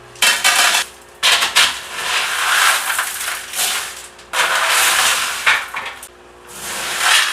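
Aquarium gravel substrate being rinsed, rattling and grinding in several bursts with short pauses between them.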